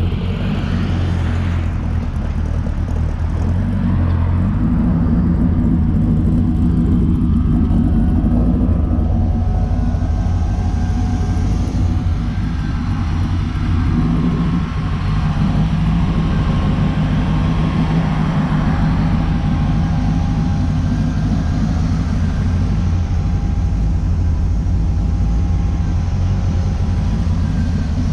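Hot-rodded 1930 Ford Model A coupe driving, its engine running with a steady low drone whose pitch shifts a couple of times.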